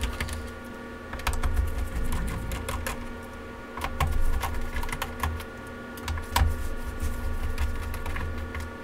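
Screws being backed out of a laptop's plastic bottom cover with a screwdriver: scattered small clicks of the bit, screws and handling, over a low rumble that comes and goes.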